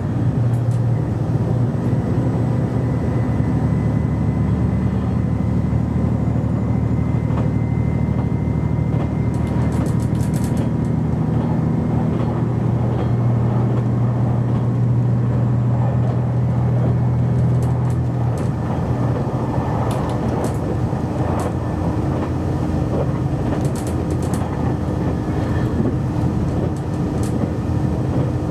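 Inside a JR Shikoku 2700 series diesel railcar running at speed: the underfloor diesel engine's steady drone mixed with wheel and rail noise. The engine's low note eases about two-thirds of the way through, and a few short sharp clicks from the track come through around the middle and near the end.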